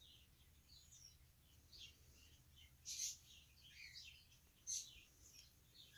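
Faint, high squeaks of two-week-old corgi puppies, short and scattered, against near silence.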